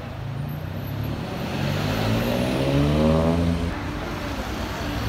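Street traffic: a motor vehicle accelerating past close by, its engine note rising to its loudest about three seconds in, then falling away, over a steady background of traffic.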